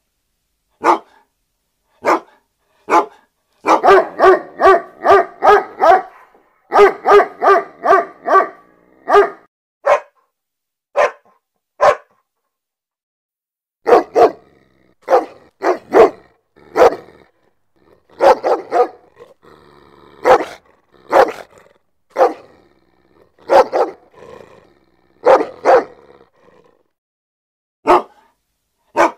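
Dog barking: sharp single barks about a second apart, then quick runs of about four barks a second. There is a pause of about two seconds partway through, then more barks at an uneven pace.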